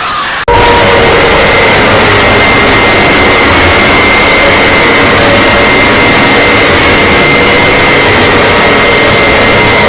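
A siren holding a steady pitch, loud and buried in hiss, starting abruptly about half a second in.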